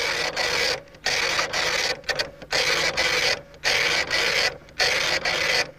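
Dot matrix printer (Telecom MP 182) printing, its pin print head buzzing across the page in repeated passes about a second long with short breaks between them, about six in all.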